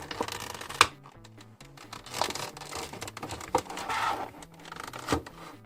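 Plastic packaging crinkling in irregular stretches, with a few sharp clicks, as a Funko Pop vinyl figure is unpacked from its box, over quiet background music.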